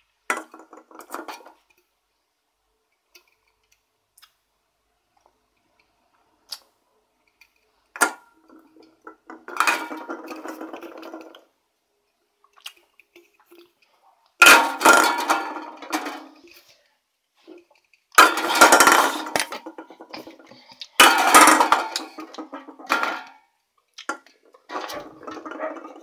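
Aluminium drink can handled close to the microphone: several bursts of metallic clatter and rattling with silent gaps between, the loudest in the second half.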